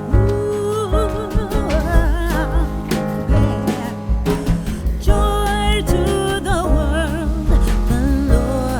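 Background music: a song with a singer's voice over guitar, bass and a steady beat.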